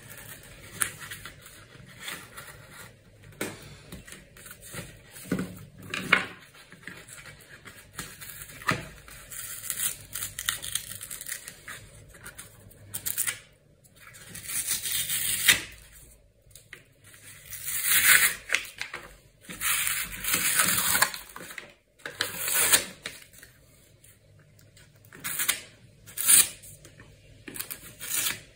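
Cardboard being cut and torn by hand: irregular bursts of ripping and scraping, several of them stronger in the second half.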